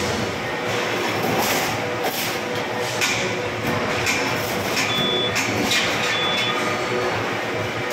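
Steady machine-shop din at a press brake, with knocks and clanks from a large sheet-metal panel being handled and bent, and a couple of brief high-pitched tones.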